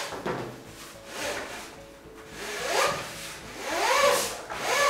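A roller blind's weight bar being slid out of the fabric's hem pocket: a rubbing, scraping sound that swells and fades about five times as it is pulled in strokes. Soft background music plays underneath.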